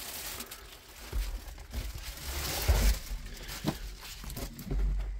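Rustling and scattered clicks and knocks of a handheld phone camera being handled and carried, with several short low rumbles on the microphone.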